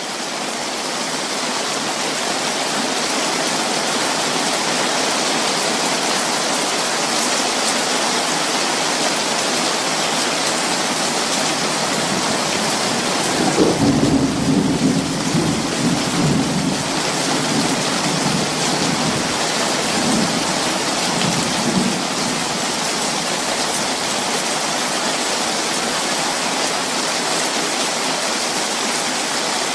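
Steady rain falling, with a clap of thunder about halfway through that rumbles on unevenly for about eight seconds.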